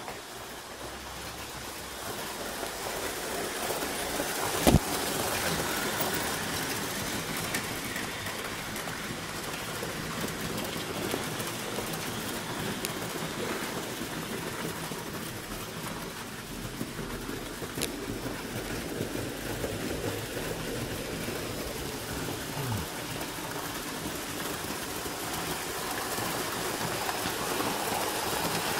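Model trains running on a layout: a steady whirring, rushing noise of wheels on track and small motors, with one sharp click about five seconds in.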